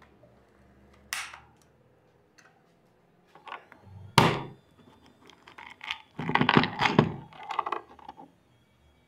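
Metal clicks and clacks of an air rifle's folding bipod being handled and set. There is one sharp, loud snap about four seconds in, then a quick run of rattling knocks.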